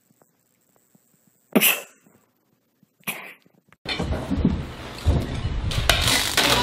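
A kitten sneezing twice, two short sharp sneezes about a second and a half apart. From about four seconds in, a loud, dense rush of sound takes over.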